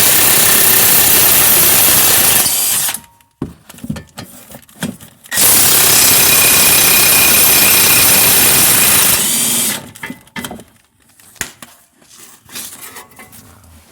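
Impact wrench running in two long bursts, about three and four seconds each, driving an 18 mm socket to undo the two brake caliper bracket bolts. A few light metallic clicks and knocks follow.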